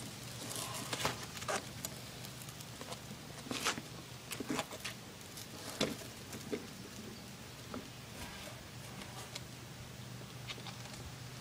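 Manual wheelchair rolling over gritty ground: scattered small crunches and clicks from the wheels and push rims, most of them in the first half and fewer after about six seconds.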